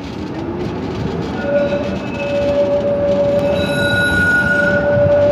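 Steel wheels of a type 701 tram trailer squealing in a curve, heard from inside the car: a steady high-pitched squeal sets in about a second and a half in and grows louder, over the rumble of the wheels on the rails.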